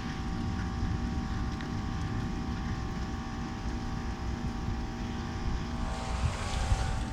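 Outdoor heat pump unit running, a steady mechanical hum with a low rumble, wind buffeting the microphone. A brief swell of hiss comes about six seconds in.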